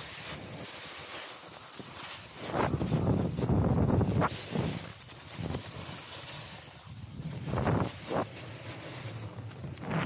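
Snowboard edges scraping and hissing across packed snow through a run of carved turns, the noise swelling with each turn every second or two.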